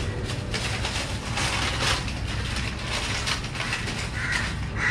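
Plastic biscuit packet and carrier bag crinkling and rustling as they are handled and torn open. A crow caws near the end.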